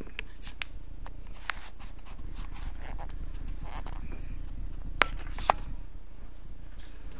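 Kitchen handling noises: soft rustling and scraping of hands working cookie dough in a plastic bowl, with several light clicks and two sharp knocks about five seconds in, over a steady low hum.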